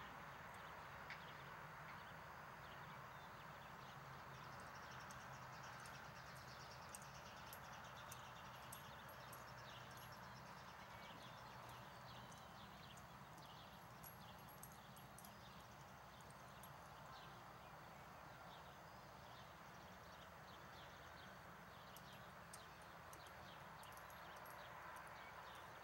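Faint sounds of a ridden horse walking on soft arena dirt, with light, irregular clicks over a steady low hum.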